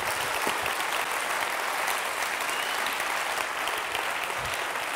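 Theatre audience applauding steadily after a punchline.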